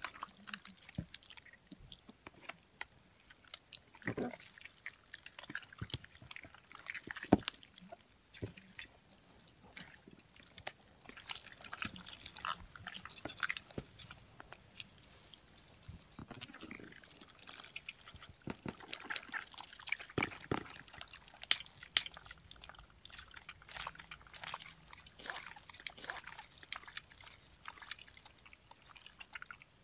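A large blob of mixed slime squished and kneaded by hand, with irregular sticky clicking and popping.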